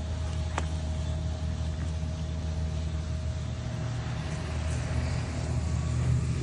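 Steady low mechanical hum, with a faint higher whine above it that fades out near the end, and a single sharp click about half a second in.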